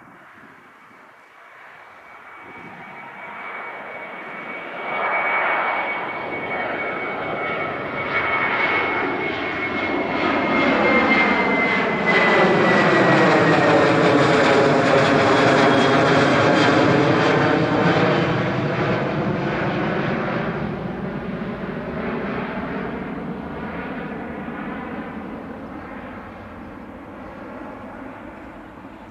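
Twin CFM56-7B turbofans of a Boeing 737-700 climbing out just after takeoff and passing overhead: the jet engine noise builds, peaks about halfway through, then slowly fades as it flies away. A high fan whine sits over it and slides down in pitch as the aircraft goes by.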